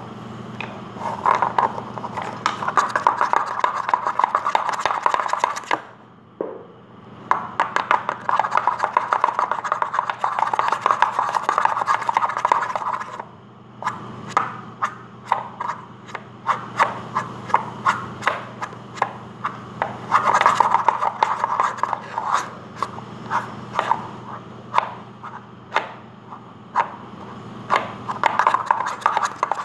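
Hollow plastic egg halves slid and shuffled over a tabletop, a rapid run of scraping and clicking plastic, broken by two short pauses about 6 and 13 seconds in.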